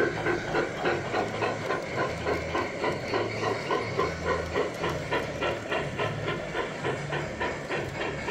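Model steam locomotive on a garden railway chuffing steadily, about three hissing chuffs a second, over a low running rumble.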